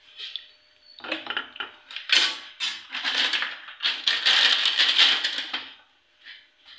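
Rough, rapid scraping and crackling from kitchen handling at the stove, in several loud stretches from about a second in until nearly six seconds.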